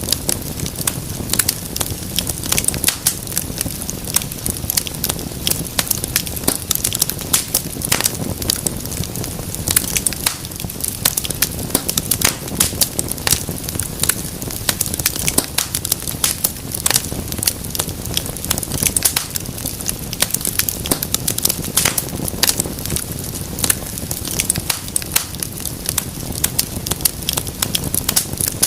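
Wood fire burning with dense, irregular crackling and popping over a steady low rumble of flame.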